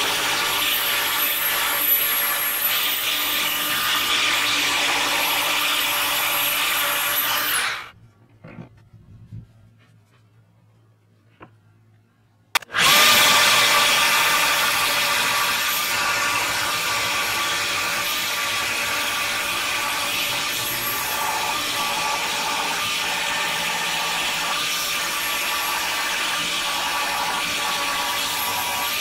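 Corded jigsaw cutting through plywood. It stops about eight seconds in, and after a few seconds of near quiet it starts again and keeps cutting.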